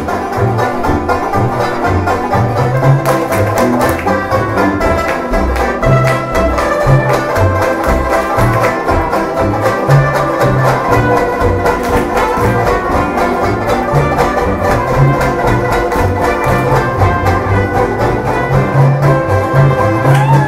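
Upbeat banjo band music: plucked banjos and strings over a steady, pulsing bass line.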